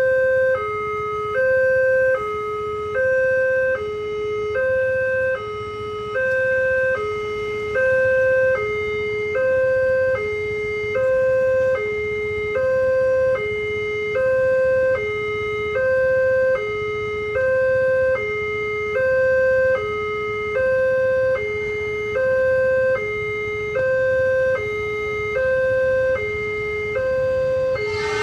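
Multech electronic warning siren on a railway level crossing, sounding a steady hi-lo alarm that alternates evenly between a higher and a lower tone: the crossing is activated, warning that a train is approaching.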